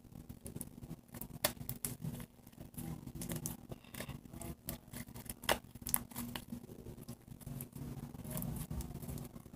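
Sticky homemade shaving-cream slime being kneaded and stretched between the hands: irregular soft crackling and sticky clicks, with a few sharper snaps as it pulls apart.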